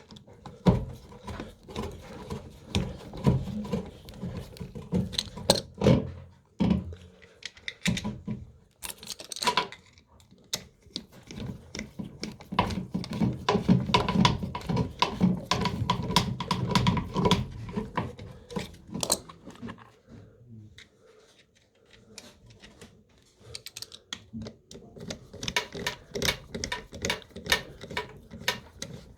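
Irregular clicks, taps and knocks of hands and tools working on a washing machine's panels and parts, with a steadier low hum mixed in for several seconds around the middle.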